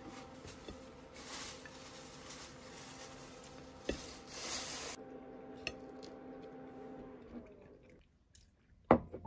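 Quiet room sounds around a breakfast table: a steady low hum that falls in pitch and dies away about seven seconds in, with a few light clinks of dishes and a sharp click just before the end.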